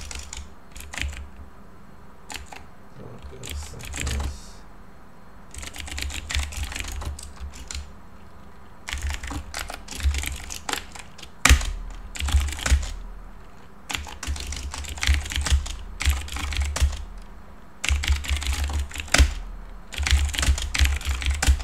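Typing on a computer keyboard: bursts of rapid key clicks with short pauses between them, a dull low thud under each burst. One sharp key strike about halfway through is the loudest.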